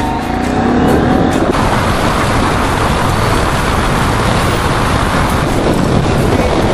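Motorcycle on the move: a loud, steady rush of wind and road noise with the engine underneath. It swells in over the first second and a half, after a pitched note glides up and down.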